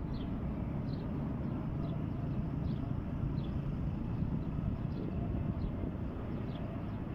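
Steady low background rumble. Over it, a small bird gives a thin, high, slightly falling peep about every three quarters of a second.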